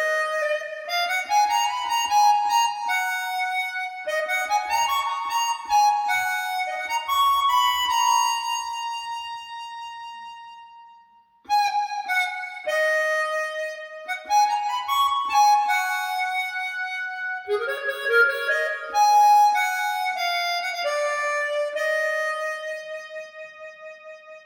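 Solo harmonica melody with notes bent up into pitch, played back through Fyne Audio F500 SP loudspeakers. One phrase fades out about halfway through, a second begins at once and ends on a long held note that fades with a wavering.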